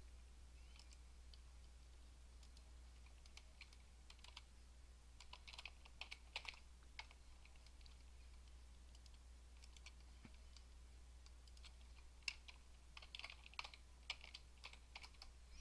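Faint computer keyboard typing: short runs of keystrokes around the middle and again near the end, over a low steady hum.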